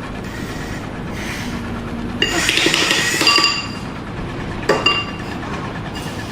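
Metallic clanking with ringing tones over a steady engine rumble, then a single sharp knock a little before the end.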